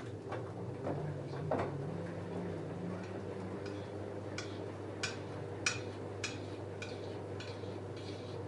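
LG F10A8HDS5 front-loading washing machine's direct-drive motor turning the drum with a load of jeans in the wash. A steady hum with a motor tone shifting in pitch over the first few seconds, and hard clicks from the tumbling load about every half second in the second half.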